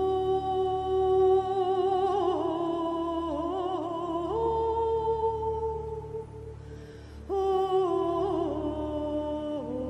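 Slow background music: a melody of long held notes with vibrato, which drops away briefly about seven seconds in before a new phrase begins.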